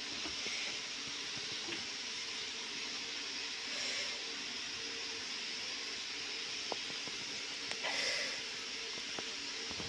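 Potato chips frying in hot oil: a steady, soft sizzle with a few faint clicks.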